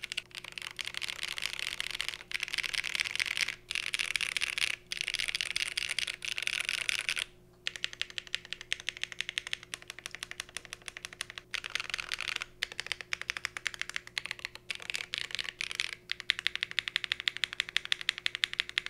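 Fast, continuous typing on a Cycle 8 mechanical keyboard fitted with HMX Ice Cendol switches, GMK Lime keycaps and case foam. The typing comes in long runs broken by short pauses.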